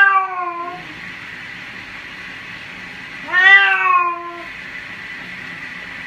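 A cat meowing twice during its bath: a meow tails off in the first second, and a second long, slightly falling meow comes about three and a half seconds in. A steady hiss runs underneath.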